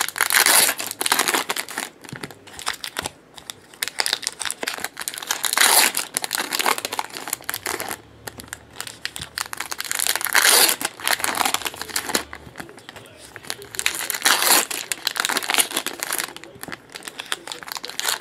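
Foil Upper Deck hockey card packs being torn open and their wrappers crinkled, one pack after another: a loud tearing crinkle about every four to five seconds, with quieter rustling of the foil between.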